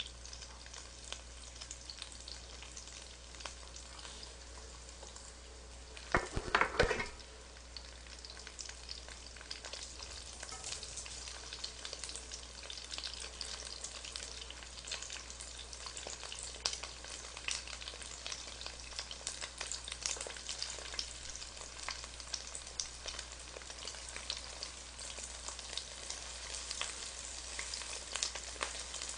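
Egg-battered mushroom pancakes sizzling in hot oil in a pan, with a steady crackle of small pops and chopsticks turning and stirring them. About six seconds in, a brief loud sound rises over the frying for about a second.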